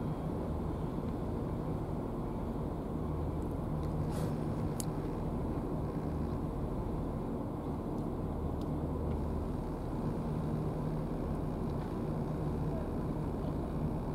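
Steady low drone of an engine running without change, with a couple of faint ticks about four seconds in.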